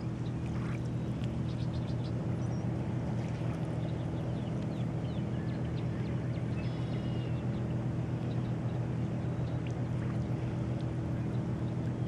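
A steady low motor drone, even in pitch throughout, with faint short high chirps of birds now and then.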